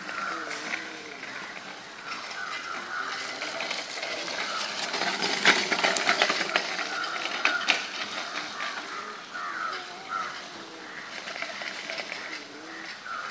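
Child's bicycle with training wheels rolling over sandy, gritty ground: crunching and rattling clicks that grow loudest about halfway through as it passes close, then fade.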